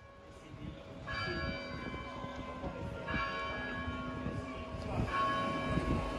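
Church bell tolling, three strikes about two seconds apart, each ringing on until the next, over a low street rumble.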